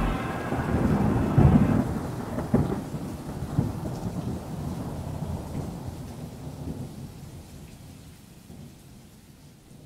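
Thunder rumbling over rain, loudest about a second and a half in, then slowly fading away.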